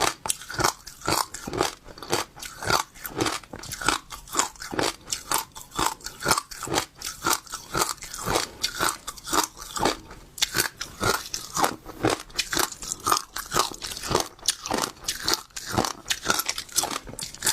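Crunchy seeds being bitten and chewed close to the microphone: sharp, crisp crunches in a steady rhythm of about two a second.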